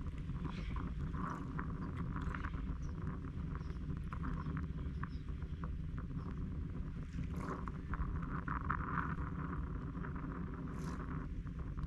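Seaside ambience at a fishing-boat landing: a steady low rumble under small splashes and clicks of water, with a louder wash of water about eight to nine seconds in.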